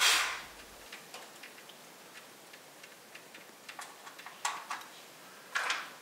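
Hands working on parts inside an open amplifier chassis: sparse light clicks and taps, with a short scraping rustle right at the start and another just before the end.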